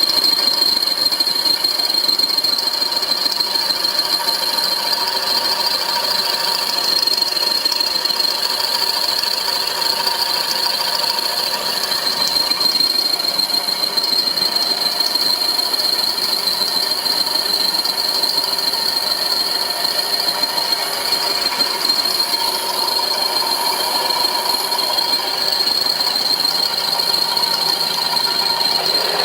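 Homemade milling machine running steadily, with a constant high-pitched whine over a lower hum.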